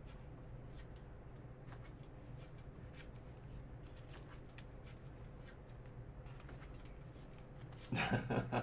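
Faint rustling and light clicks of trading cards and packaging being handled and shuffled, over a steady low hum. A brief louder voice near the end.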